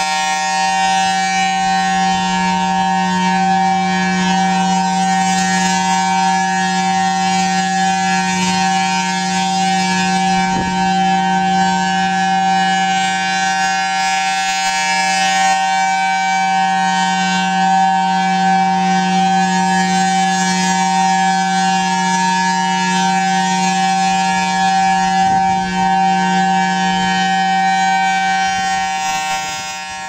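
Federal Signal Thunderbolt 1003 rotating civil defense siren sounding a loud, steady tone held at one pitch, its level swelling slightly as the horn turns.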